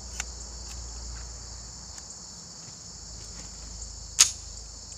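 Steady high-pitched chorus of crickets, with one sharp click a little past four seconds in.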